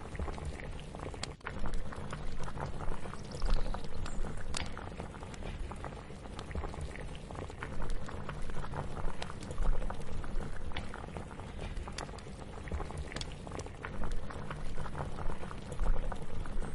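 Liquid boiling in a pot, a dense bubbling and popping that swells louder every few seconds.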